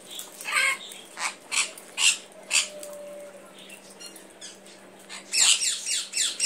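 Conure screeching: a few short, sharp calls in the first couple of seconds, then from about five seconds in a rapid run of repeated screeches, each falling in pitch.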